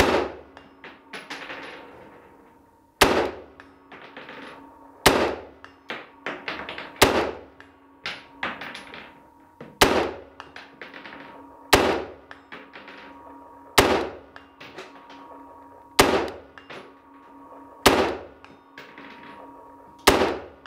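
An AR-15 rifle in M16A2 configuration, with a 20-inch barrel and rifle-length gas system, firing ten slow semi-automatic shots about two seconds apart. Each is a sharp report with a short echo.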